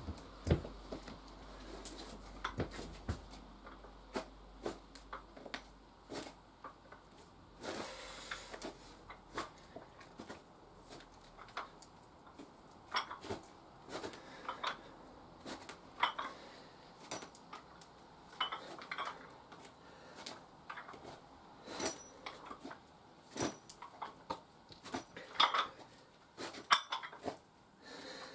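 Chrome dumbbells clinking and knocking during a set of reps: irregular sharp metallic clicks, roughly one every second or so, some with a short ring.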